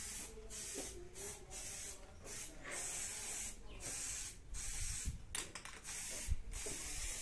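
Aerosol spray can of quick-drying automotive paint hissing in a string of short bursts with brief pauses between them.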